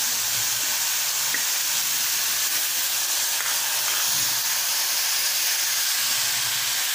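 Chopped vegetables sizzling in hot oil in an aluminium pressure-cooker pan while being stirred with a spatula, a steady frying hiss.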